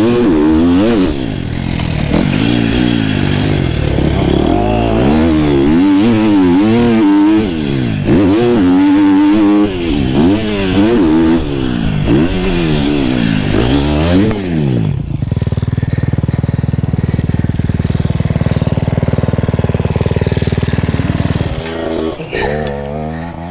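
KTM motocross bike's engine revving up and down over and over as the rider works the throttle around the track. About fifteen seconds in it holds one steady pitch for several seconds, then drops away and gets quieter near the end.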